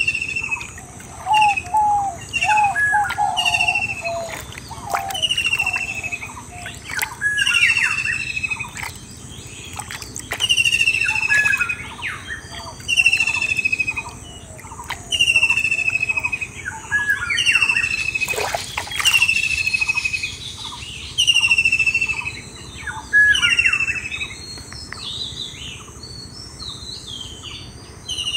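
Birds singing. One bird repeats a short, falling whistled phrase every two to three seconds, with other chirps in between. There is a short rush of noise about two-thirds of the way through.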